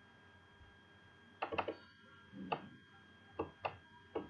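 Faint clicks of a computer mouse and keyboard, about six, some in quick pairs, starting about a second and a half in. A faint steady high whine sits underneath.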